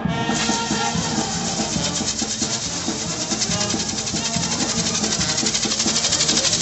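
Fireworks on a torito, a bull-shaped frame carried by a dancer, crackling and fizzing in a steady rapid stream, with music playing underneath.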